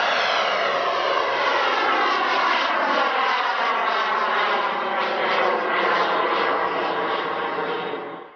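IQ Hammer 200+ model jet turbine running in flight: a high, many-toned whine over a hiss that slides slowly down in pitch, then fades out quickly near the end.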